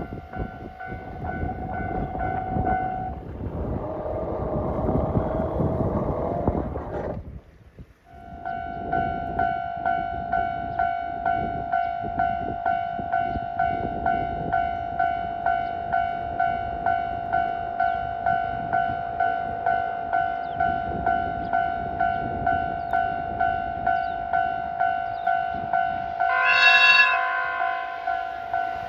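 Railway level-crossing alarm ringing a steady electronic tone that pulses about twice a second, over the rumble of a train running past on the line. The sound drops out briefly about eight seconds in, then the alarm and train noise resume, and a train horn blows for about a second near the end.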